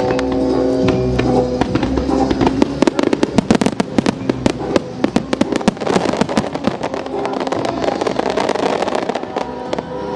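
Fireworks display: a rapid barrage of sharp bursts and crackles, many a second, densest from about two seconds in to near the end, with music playing underneath.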